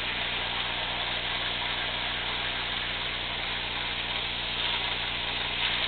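Lionel Alaska Railroad toy train running on O-gauge three-rail track: a steady whir and rumble of the locomotive motor and the wheels rolling over the rails.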